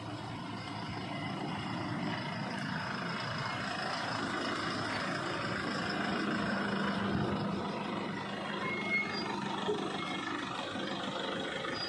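A pickup truck and then a minivan driving past one after another, engines running and tyres on the road, with a low engine hum strongest in the middle as the vehicles pass close.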